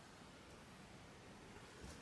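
Near silence: faint room hiss, with a small click near the end.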